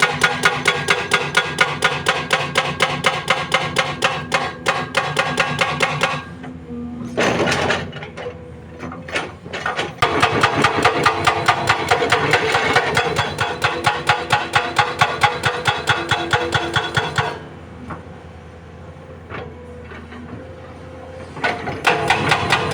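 Hydraulic rock breaker on a SANY SY215C excavator hammering rock in a fast, steady rhythm of several blows a second. The hammering stops about six seconds in, starts again around ten seconds, stops again near seventeen seconds, and resumes shortly before the end.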